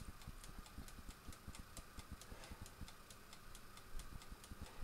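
Faint, fast, steady ticking, about six ticks a second, from the clockwork of the air fryer's mechanical 30-minute dial timer running down. A soft low knock comes about four seconds in.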